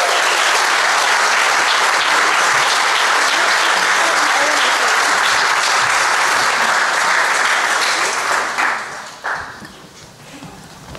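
Audience applauding steadily, then dying away about nine seconds in.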